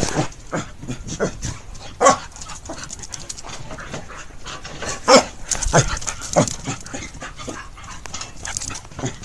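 Dogs, one of them a Shiba Inu, panting and moving about restlessly, with a few louder short sounds about two, five and six and a half seconds in.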